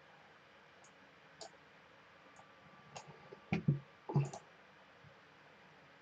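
Computer mouse button clicks: a few faint, scattered clicks, then a louder group of clicks with a dull knock between about three and a half and four and a half seconds in.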